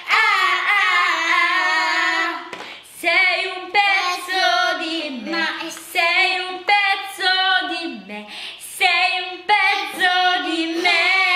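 Young girls singing a song with no accompaniment: phrase after phrase of long held notes with a wavering pitch, broken by short pauses.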